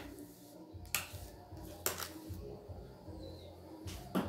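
Mason's trowel working cement mortar, clinking sharply a few times: about a second in, again near the two-second mark, and once near the end.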